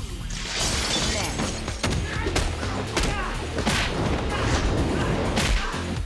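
Fight-scene sound effects: a crash about half a second in, then a run of sharp hits and whooshes.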